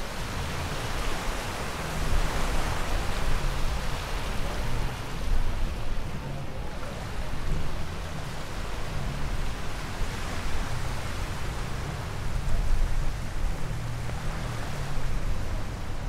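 Small waves washing onto the sand: a steady rushing hiss that swells and eases every few seconds, over a low uneven rumble.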